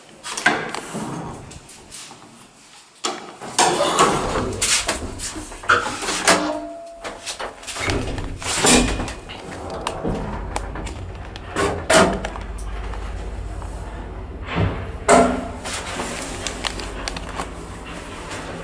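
Manual landing door and car doors of a 1977 ZREMB traction elevator opening and banging shut, with a series of knocks and clatters. After that the lift sets off and runs with a steady low rumble, broken by a couple of clunks.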